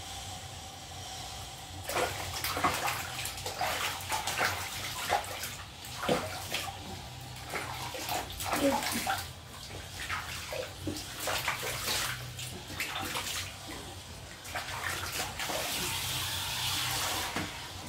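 Water splashing and sloshing in a basin as hands wash a wet pet, in uneven splashes. Near the end comes a steadier hiss of a handheld shower head spraying water over it.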